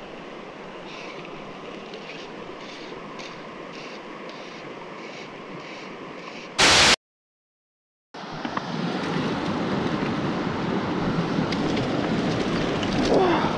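Steady outdoor rushing noise of water and wind on the microphone. About six and a half seconds in, a short loud burst is followed by about a second of dead silence at an edit cut; after it the rushing comes back louder.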